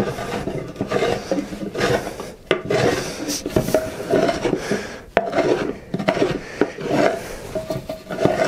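Marking gauge scratching along the edge of a board in a series of short, uneven strokes, its cutter scoring a light thickness line into the wood.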